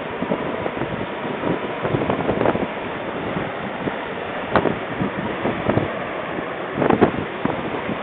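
Storm wind buffeting the microphone over a steady rush of surf as waves push over a seawall, with a few sharper gusts or wave surges partway through.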